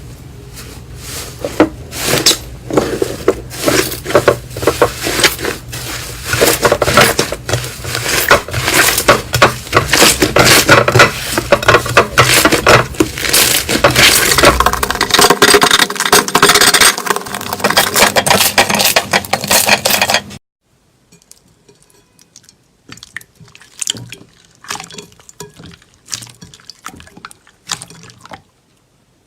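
Slime being squished and pressed by hand, making a dense run of wet clicks and pops. About twenty seconds in it cuts abruptly to quieter, sparser clicks.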